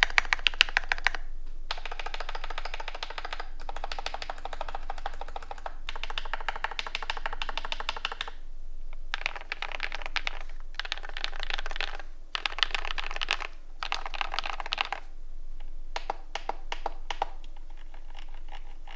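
Typing on a TM680 mechanical keyboard with lubed Akko Matcha Green switches. Fast runs of keystrokes come in bursts of one to three seconds, separated by brief pauses.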